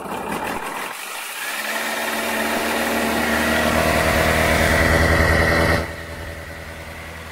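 Kawasaki ZX-9R inline-four engine idling steadily on choke, just started with fresh oil. It grows gradually louder, then drops suddenly about six seconds in and keeps running more quietly.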